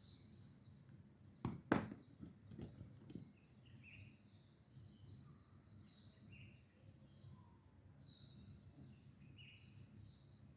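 Faint birds chirping over a low steady room hum, with a couple of sharp knocks on a desk about one and a half seconds in and a few softer taps just after.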